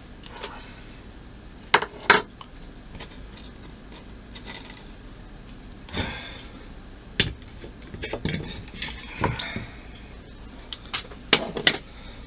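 Small hand tools and parts being picked up and set down on a work surface: scattered sharp clicks and knocks, the loudest about two seconds and seven seconds in, with lighter taps between.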